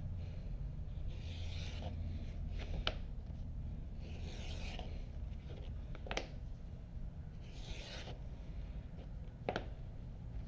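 Leather edge beveler (a Ron's Montana edger, size 3) shaving the edges of a leather strap: three soft scraping strokes, each about a second long, with a sharp click after each.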